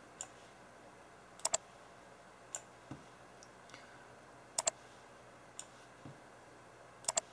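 Computer mouse buttons clicking: three quick double clicks about three seconds apart, with a few fainter single clicks between.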